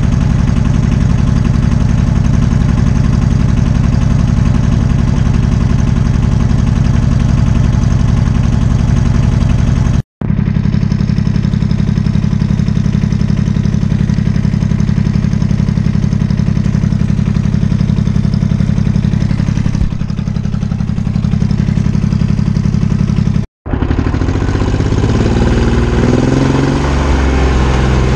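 Small tractor engine running steadily, close up. The sound breaks off sharply twice for an instant. In the last few seconds the engine speed rises and falls as the tractor is driven.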